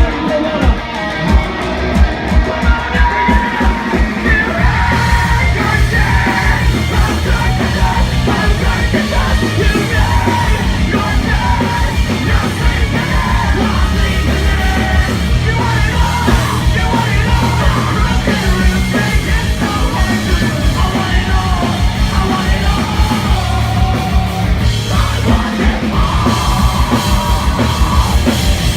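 A loud live heavy rock band playing a song, with pounding drums, distorted guitars and yelled vocals; the full band comes in heavier about four to five seconds in.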